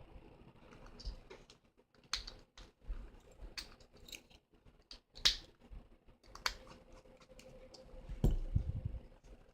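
Scattered sharp plastic clicks and taps from an interactive talking Woody figure being handled, with a louder thump about eight seconds in.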